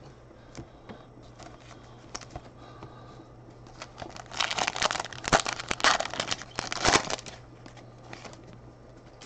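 Foil wrapper of a 2020 Panini Prizm football card pack being torn open and crinkled. Faint clicks of cards being handled come first, then a loud run of crackling rips from about four seconds in until about seven seconds in.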